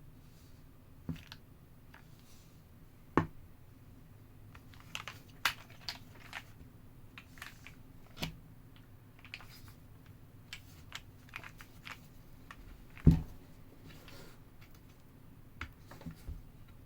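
Slow, irregular keystrokes on a Keychron Q2 mechanical keyboard fitted with Krytox-lubed LEOBOG Grey switches and GMK Hammerhead-clone keycaps: scattered single clicks and clacks. There are two louder, deeper strikes, about three seconds in and about thirteen seconds in.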